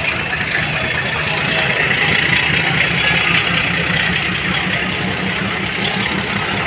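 A passenger train's diesel engine running steadily, a low rumble under the hubbub of a crowd of voices.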